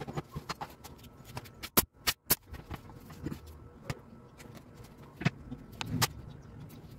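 Sharp wooden knocks and clacks of timber strips being set down and tapped onto a plywood panel, with three loud knocks close together about two seconds in and single knocks scattered after.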